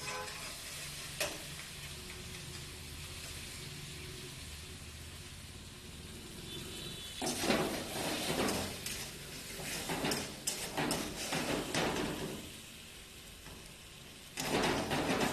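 Pasta and sauce sizzling in a hot frying pan on a gas burner. From about seven seconds in, metal tongs and a spatula scrape and clatter against the pan in loud, irregular bursts as the pasta is tossed. The clattering eases briefly, then picks up again near the end.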